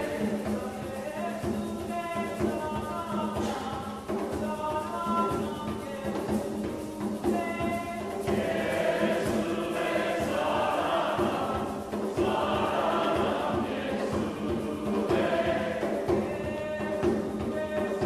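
A group singing a Hindi hymn to a portable harmonium, which holds a steady drone underneath. The singing grows fuller about eight seconds in, with many voices together.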